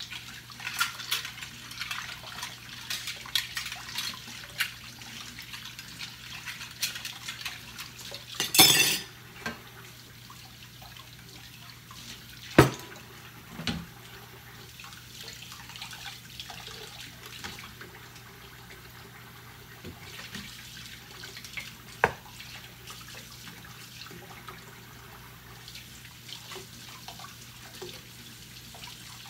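Dishes being washed by hand in a stainless steel kitchen sink: tap water running and splashing, with dishes and utensils clinking and knocking. A loud clatter comes about nine seconds in, and sharp knocks about 13 and 22 seconds in.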